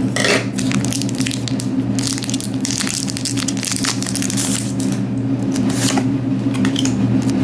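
Foil wrapper of a Pokémon trading card booster pack crinkling and crackling as it is handled and opened by hand.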